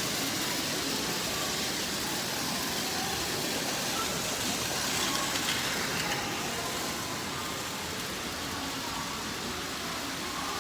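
Battery-powered Plarail toy trains running on plastic track, a steady even noise that keeps going throughout.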